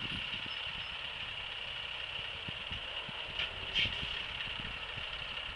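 Scania V8 articulated truck running at low revs as it pulls slowly away, heard from a distance, under a steady high hiss. Two brief hissing sounds come a little past the middle.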